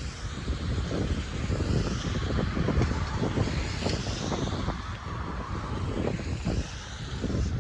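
Wind buffeting the microphone in irregular low thumps over a steady rush of outdoor traffic noise.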